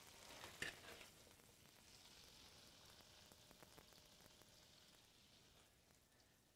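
Faint sizzling of a butter sauce with lemon juice just added, in a stainless steel sauté pan on an electric stove, with a short knock about half a second in. The sizzle fades out near the end.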